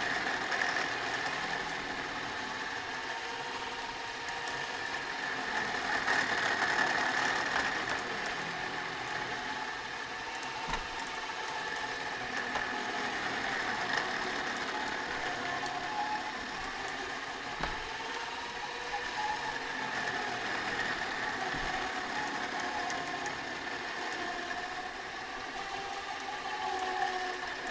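Truck-mounted winch running steadily as it pulls the line on a tree, its motor tone wavering slightly in pitch under the load.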